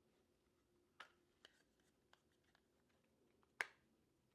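A few light clicks and taps from handling a DJI Osmo Pocket 3 and its protective cover, with one sharper click about three and a half seconds in.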